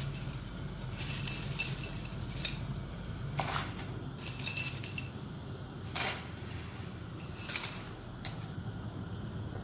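Salted water heating to the boil in a large stainless steel pot on a gas hob: a steady low rumble, with a number of short metallic clinks of pots and utensils, the loudest about six seconds in.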